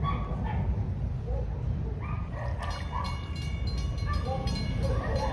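A dog giving short, high whines. Under them runs a steady low rumble, and from about halfway through a high, buzzing tone pulses rapidly.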